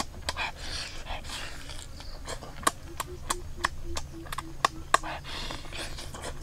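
Close-up eating sounds of a person biting into and chewing a cooked octopus tentacle. Many sharp wet mouth clicks and smacks, with breathing in between.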